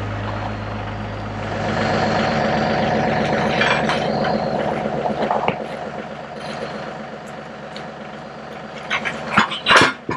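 A compact tractor's engine running, louder for a few seconds as the tractor moves off, then fading. Just before the end comes a cluster of loud metal clanks as a steel pulverizer frame is tipped over onto its side.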